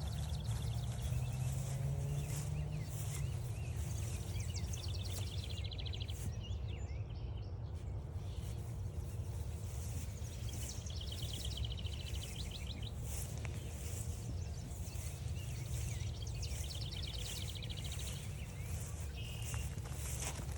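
A songbird singing a rapid trill of quick repeated notes three times, over crunching footsteps on the trail and a steady low rumble.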